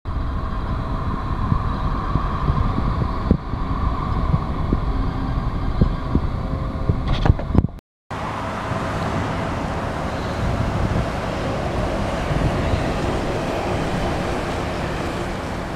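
Road traffic on a city street: vehicle engines running and passing as a steady rumble, with a few sharp knocks in the first half. The sound drops out briefly about eight seconds in, then the traffic noise carries on.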